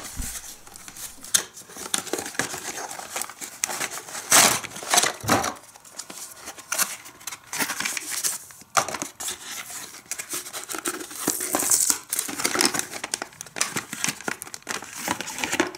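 A cardboard toy box being opened by hand: flaps and a cardboard insert pulled out and a paper instruction sheet handled. The result is an irregular run of crinkling, rustling and scraping with sharp crackles.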